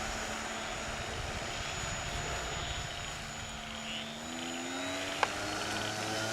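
Electric motor and propeller of a radio-controlled Cessna 182 floatplane model running, its whine rising in pitch in the second half as it throttles up. There is one sharp click about five seconds in.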